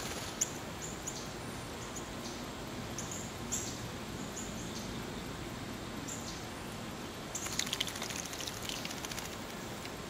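Eastern bluebird bathing in a birdbath: a burst of rapid splashing from its wings beating in the water starts about seven seconds in and lasts about two seconds. A few short high-pitched ticks come before it, over a steady outdoor hiss.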